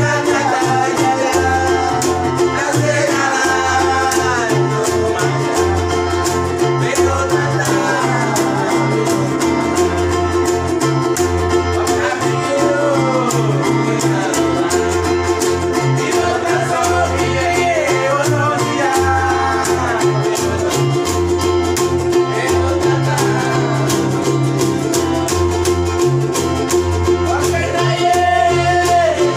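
Men's voices singing a praise song together to strummed ukulele-like guitars, a keyboard and a plucked tall wooden string bass, in a steady, even strumming rhythm with the bass notes changing about every second.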